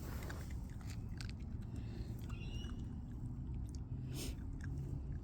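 A toy Cavoodle puppy chewing a snack, with small irregular clicks of its bites, over a steady low rumble.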